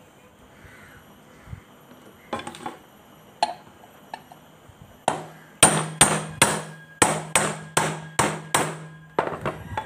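Hammer blows on a brush cutter's aluminium clutch housing and drum, knocking the clutch drum loose so it can be replaced. A few light knocks come first, then about halfway in a run of about eleven sharp metallic strikes, some two a second, each ringing briefly.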